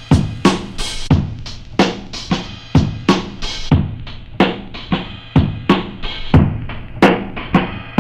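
Drum loop of kick, snare and hi-hats played back through an Akai S950 sampler at reduced sample rates, stepping down from 10200 Hz to 4200 Hz and then 3000 Hz. Each step cuts more of the treble, so the beat turns duller and dirtier.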